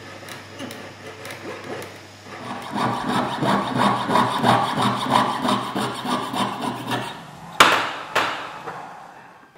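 Jeweler's saw blade cutting through a silver ring on a wooden bench pin, in quick back-and-forth strokes that start light and grow louder after a couple of seconds. Two sharp clicks come near the end as the sawing stops.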